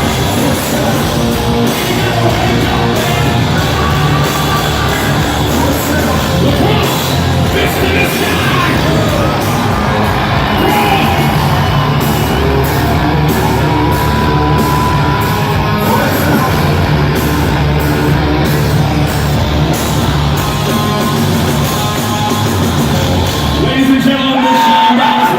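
Live rock band playing loudly in a large arena hall, with heavy bass and drums and yelled vocals. Near the end the full band drops back and one held note slides slowly down.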